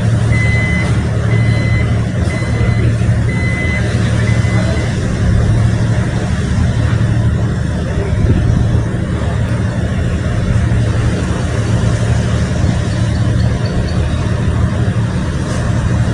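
Heavy diesel construction machinery running with a steady low drone. A reversing alarm beeps about six times in the first five seconds, then stops.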